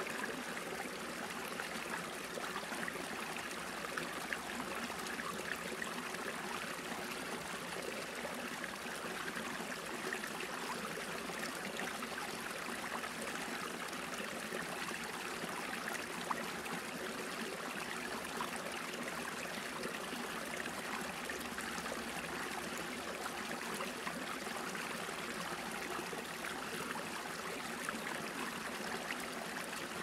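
Small brook trickling and gurgling as it spills over a low step, a steady even splashing of water.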